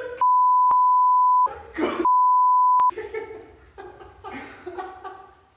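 Two steady censor bleeps, the first a bit over a second long and the second shorter, blanking out spoken words, with a voice heard between them and afterwards.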